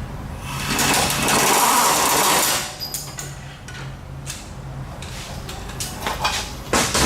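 A power tool runs in one burst of about two seconds. A few sharp metallic clicks and knocks follow near the end, over a steady low hum.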